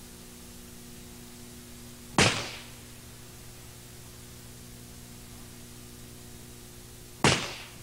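Two shots from a .38 Special revolver firing standard loads, about five seconds apart, each a sharp crack with a short fading tail.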